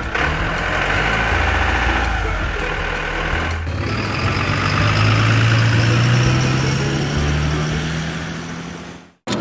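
Truck engine running, its pitch rising slowly through the second half before it cuts off suddenly near the end.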